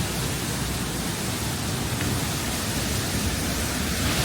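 Waterfall falling steadily: an even, unbroken rush of water with no changes.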